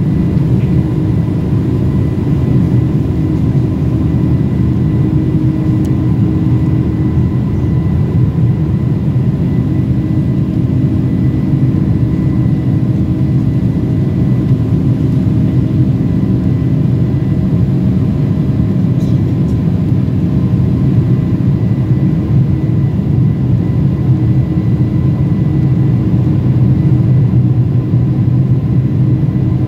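Inside the cabin of a Boeing 747-400 climbing after takeoff: its General Electric CF6-80C2 turbofans make a steady, loud low rumble, with a constant high whine over it.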